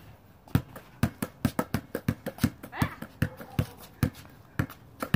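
Basketball being dribbled on a concrete driveway: a run of bounces that quickens to about five a second, low and fast, then slows near the end.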